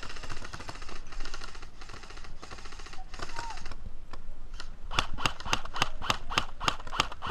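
Airsoft guns firing: fast full-auto bursts for the first three and a half seconds, then, after a short pause, a steady string of single shots about four a second.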